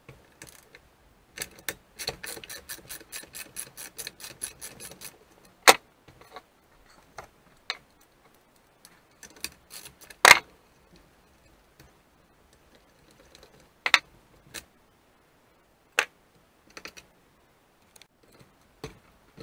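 Hand tools and metal parts of an old McCulloch chainsaw being worked during disassembly. A run of quick, even clicks, about five a second, lasts about three seconds. Then come scattered single sharp metallic clicks and knocks, the loudest about ten seconds in.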